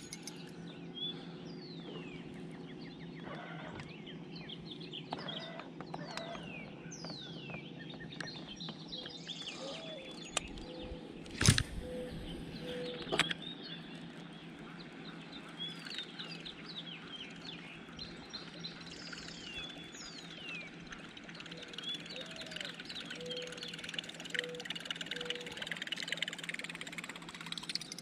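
Morning birdsong over a lake: many birds calling with quick, high, falling whistles, and a lower call of a short rising note followed by a few even notes, heard twice. About a third of the way in there is one sharp knock.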